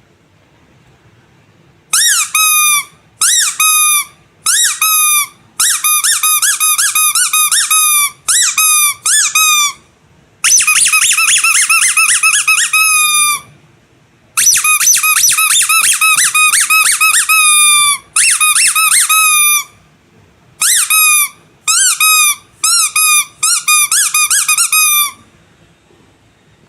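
Squeaky animal toys squeezed over and over: short, high squeaks that each drop in pitch at the end, some single and some in quick runs. They start about two seconds in and stop a little before the end.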